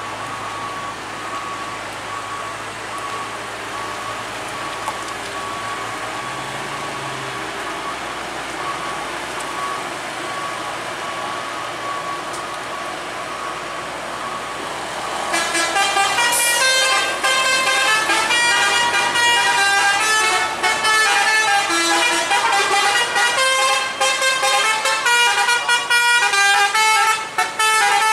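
Heavy truck engine noise with a thin steady high tone; about halfway through a much louder multi-tone vehicle horn starts, playing a stepping melody in short repeated phrases.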